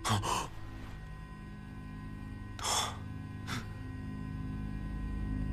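A breathy exhale like a sigh about two and a half seconds in, then a shorter, fainter breath about a second later, over a soft, steady low drone.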